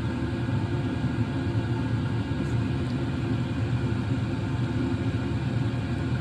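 Diesel heater running: a steady low rumble.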